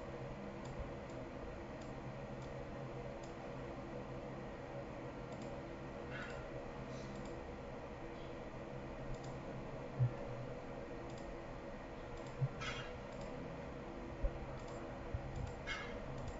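Scattered single computer mouse clicks, several seconds apart, over a steady low electrical hum.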